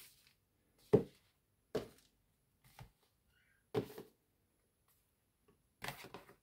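Boxed bars of soap being set down and shifted on a wooden desktop: about five separate soft knocks, the loudest about a second in.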